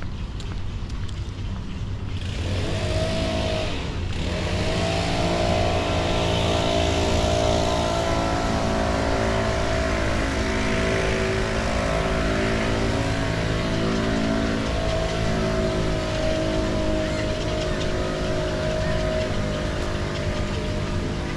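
A motor that starts up or revs about two seconds in, dips briefly, then runs at a steady, even pitch.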